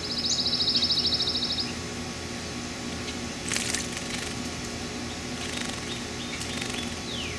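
A male painted bunting splashing in a shallow concrete birdbath, with a short burst of splashing about halfway through and fainter splashes after it. A fast, buzzy, high trill is the loudest sound at the start, and falling whistled notes come near the end.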